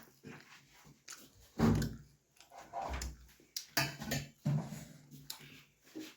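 Close-miked eating sounds: a person chewing and working a mouthful of puri and vegetable curry, in irregular wet mouth noises with a few soft low thuds.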